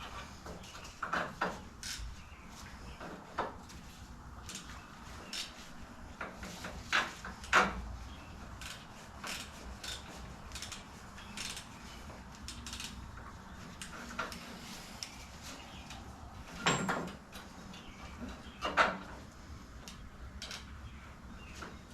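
Metal hand tools and parts clinking and knocking at an irregular pace, with louder knocks about seven and a half seconds in and near the end.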